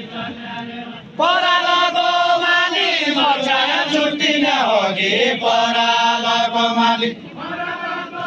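Voices singing a Deuda folk song in a chanting style, with long held notes and slow bends in pitch. The singing comes in loud about a second in and falls back to a quieter line near the end.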